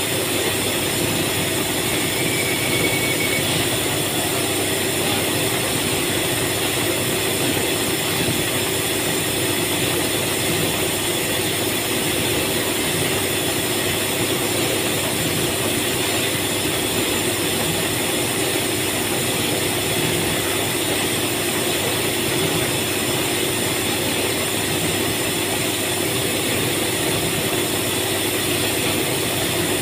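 Steady, unbroken drone of factory machinery, a constant hum with several held tones over a hiss.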